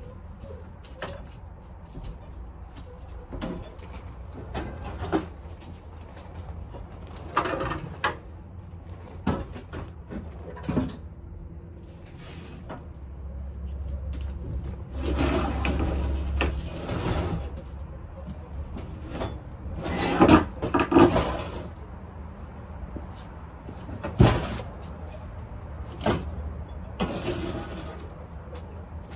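Scattered knocks and clunks with a stretch of scraping, as heavy yard equipment is shifted about by hand, with a few loud bangs in the second half.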